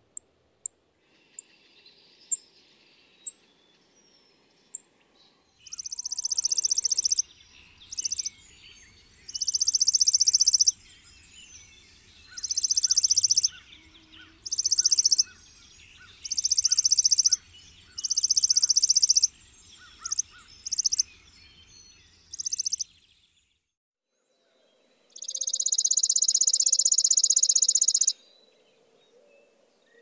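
Chipping sparrow singing: a series of high, rapid trills, each one to two seconds long and repeated about every two seconds, with one longer trill near the end. A few single high chip notes come about once a second in the first seconds.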